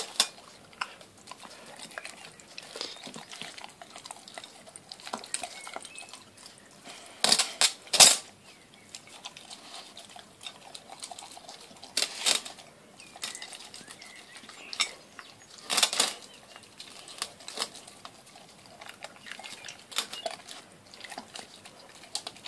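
A dog eating out of a glass dish, its muzzle and teeth knocking and scraping against the glass in irregular clicks and clatters. There are a few louder bursts of clatter, the loudest about eight seconds in.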